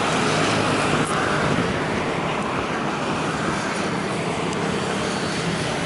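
An engine running steadily under a broad outdoor din, with no clear change in pace.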